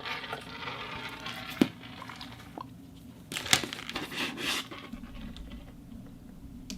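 Light handling noises: soft rustling and scraping, with two sharp clicks about a second and a half and three and a half seconds in.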